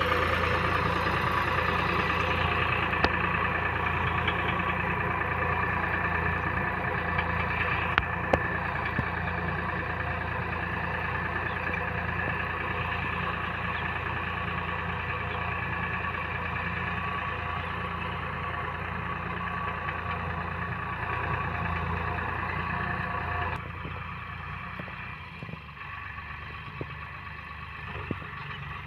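Farmtrac 45 tractor's three-cylinder diesel engine running steadily under load while pulling a potato digger through the soil. The sound fades as the tractor draws away, dropping off more sharply a little over three-quarters of the way in.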